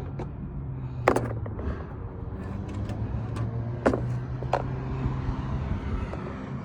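A few sharp clicks and taps of small rivet-gun parts being handled and set down, the loudest about a second in and near four seconds in, over a steady low hum.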